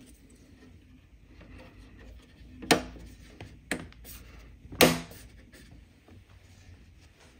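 A black plastic strip being pressed into the side frame of an IKEA Maximera drawer, snapping in with three sharp plastic clicks about a second apart, the last the loudest.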